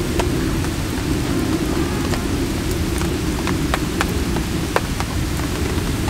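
Wood campfire burning: a steady low rumble of flame with sharp crackles and pops scattered through.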